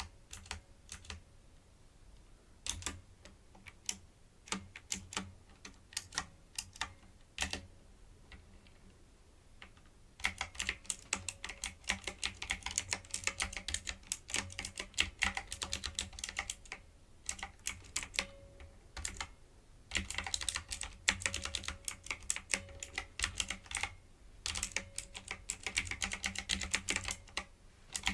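Keys clacking on a typewriter-style keyboard: scattered single keystrokes for the first ten seconds or so, then bursts of fast continuous typing broken by short pauses.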